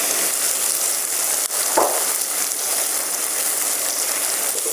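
Straw mushrooms sizzling steadily in hot oil in a pan while their cut faces brown. A brief knock sounds about two seconds in.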